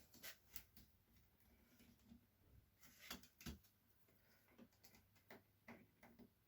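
Faint, irregular clicks and taps of a small screwdriver and small laptop parts being handled, about a dozen in all, with a small cluster about three seconds in.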